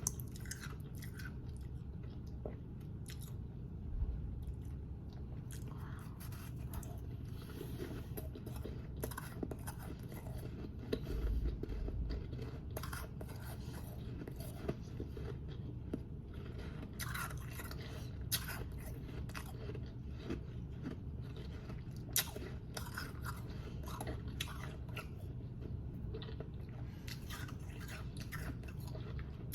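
Close-up biting and chewing of powdery shaved ice: a run of soft crunches and crackles that come and go, with a couple of louder bites.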